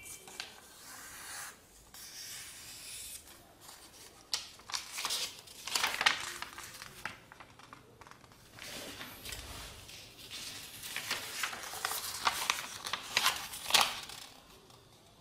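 A square sheet of paper rustling and crackling as it is folded, creased and opened out by hand in origami folding. The crinkling comes in uneven bursts, loudest about six seconds in and again from about eleven to fourteen seconds.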